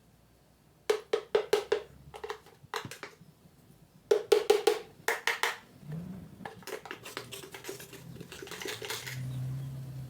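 Utensil clacking rapidly against a bowl in quick bursts as cake batter is mixed, then lighter, denser clicking over a low hum.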